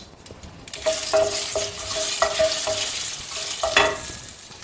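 Mustard seeds, urad dal and dried red chillies sizzling in hot oil in a stainless steel pan as they are stirred with a wooden spoon: the tempering for a spinach dal. The spoon knocks the pan several times with a short ring. The sizzling starts about a second in and dies down near the end.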